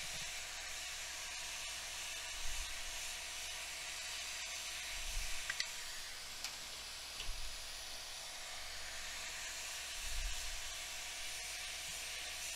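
Hot air rework station blowing a steady hiss on a laptop logic board, with a few soft low knocks from handling on the bench.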